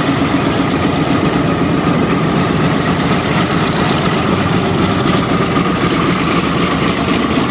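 F4U Corsair's Pratt & Whitney R-2800 radial piston engine running steadily at low power, a deep continuous drone.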